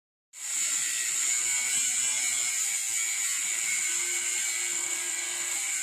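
Angle grinder with a cut-off wheel cutting into the steel shell of a large propane tank, a steady high whine over a grinding hiss that starts a moment in.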